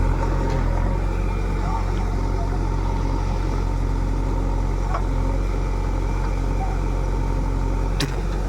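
A heavy machine's engine running steadily at an even pace, with a single sharp click about eight seconds in.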